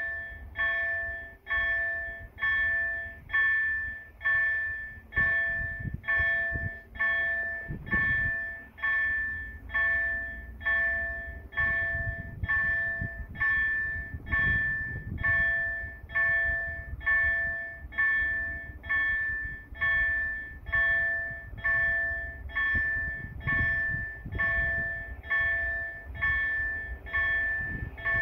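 Railway level crossing's warning bell ringing over and over in an even rhythm, each ding ringing on and fading before the next: the crossing's alarm warning of an approaching train.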